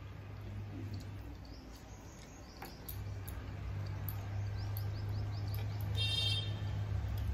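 Eating by hand: fingers working through rice and curry, with soft chewing and faint clicks over a steady low hum. A run of short, high, rising chirps comes in the middle, and a brief high call near the end.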